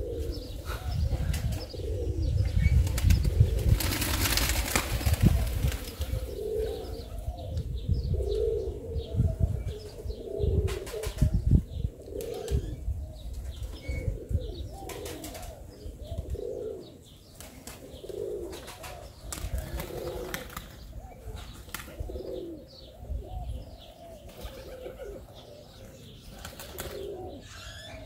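Domestic pigeons cooing over and over, a low coo about once a second, with bursts of wing flapping and sharp clicks. A low rumble runs under the first half and fades out.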